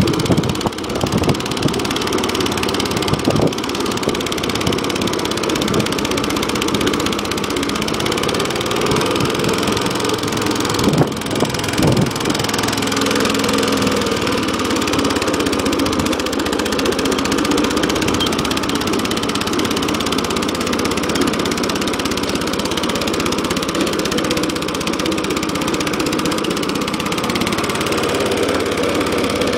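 Small single-cylinder Suffolk petrol engine of an old Atco cylinder lawn mower running steadily, freshly back in running order after a carburettor clean. A few sharp knocks sound in the first few seconds and again about eleven seconds in.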